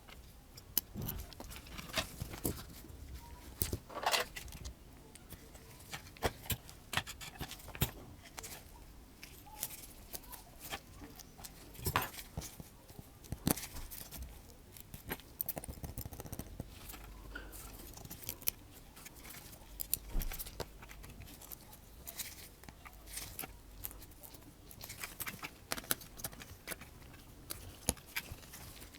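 Irregular small clicks and taps of tools and small phone parts being handled during smartphone repair, as parts are moved from the old frame onto a new screen frame.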